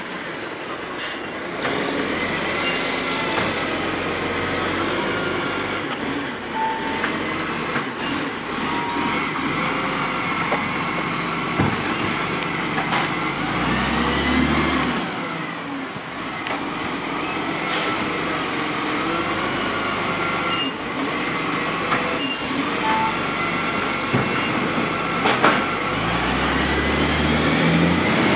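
Garbage truck driving slowly along a street, its diesel engine running with a whine that rises and falls several times as it pulls away and slows. Short, sharp air-brake hisses come again and again throughout.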